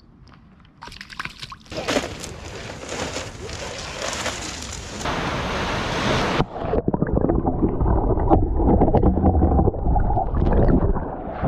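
Water splashing in a pool, then, from about six and a half seconds in, the dull, muffled sloshing and gurgling of water heard from under the surface.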